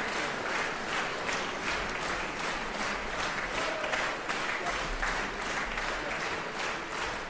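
Concert audience applauding, the clapping falling into an even rhythm of about three claps a second.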